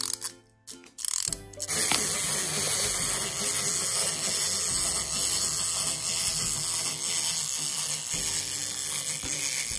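Plastic clockwork wind-up walker toys: a few clicks as the keys are wound, then from about two seconds in the wound-up mechanisms run with a steady, fast whirring clatter as the toys walk.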